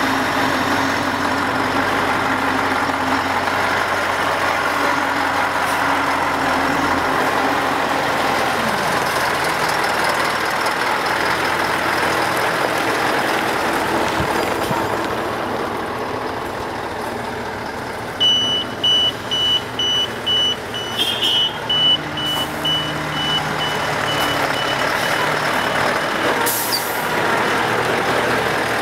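Tatra 815-7 8x8 military truck moving slowly, its diesel engine running steadily. A little past the middle a reversing alarm beeps about twice a second for several seconds, and a short hiss of air comes near the end.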